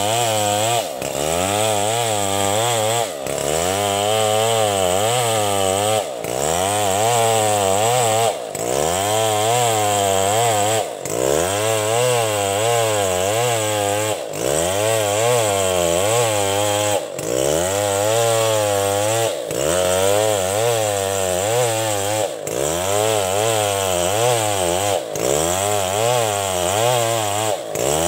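Old two-stroke chainsaw running at high revs and cutting through a log. Its pitch wavers, and it dips briefly in pitch and level about every two to three seconds.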